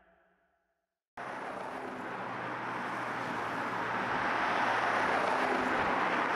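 Road traffic: cars driving along a street, starting abruptly about a second in and growing steadily louder as they approach.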